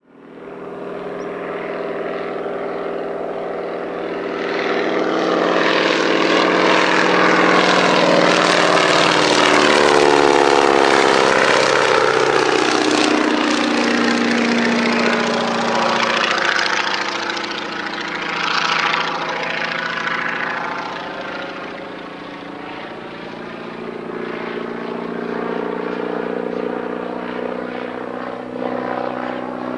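Boeing Stearman biplane's radial engine and propeller on a flyby. It comes in, is loudest about a third of the way through as it passes with a falling pitch, then fades away. It grows louder again near the end.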